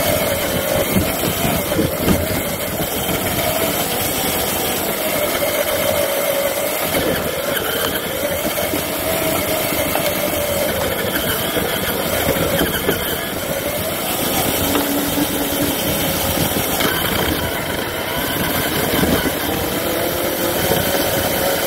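Traxxas TRX-4 RC crawler driving: its electric motor and metal gearbox whine, the pitch rising and falling with the throttle, over a dense crackle and hiss as the truck moves over rough ground.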